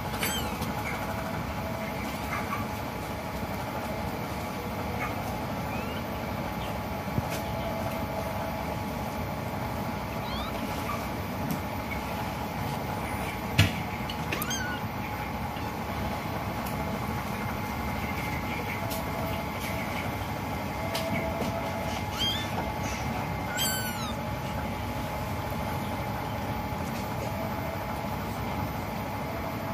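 Newborn kittens nursing, giving a few faint, short, high-pitched squeaking mews now and then, with a small cluster of them about three quarters of the way through, over a steady background hum.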